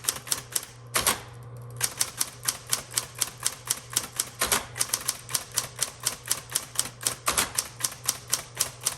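Smith Corona Coronet Automatic 12 electric typewriter being typed on, a fast, even run of key strikes at about five a second over the steady hum of its running motor. One heavier stroke about a second in is followed by a short pause before the typing resumes.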